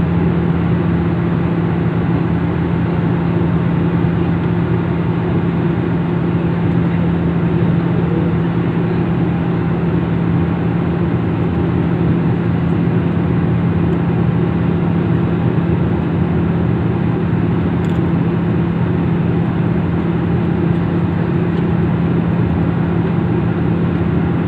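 Steady, loud engine drone with a constant low hum and no change in pitch or level, as of a vehicle or aircraft running at cruise.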